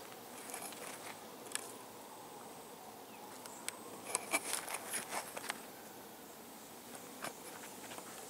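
Outdoor ambience: a faint steady insect buzz, broken by scattered light crackles and clicks, most of them in a cluster about four to five and a half seconds in.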